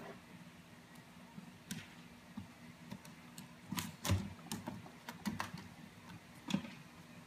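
A cat's paws tapping and scrabbling against a computer monitor screen: a run of irregular light taps, bunched together in the second half.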